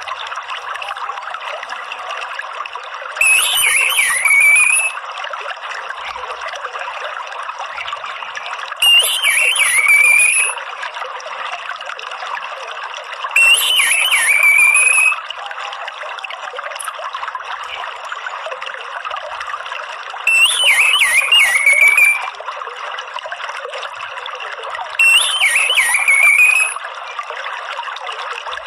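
Orange-headed thrush chattering 'ngeriwik' call, about a second and a half long, repeated five times at intervals of five to seven seconds. This is a lure recording played to make a kept bird call. Under it runs a steady trickling-water background.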